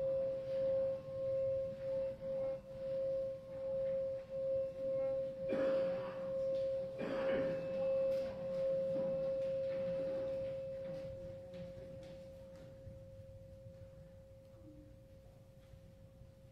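A singing bowl ringing with one steady tone that pulses in loudness several times a second. It holds its level for about ten seconds, then fades away. Two brief rustling noises come midway.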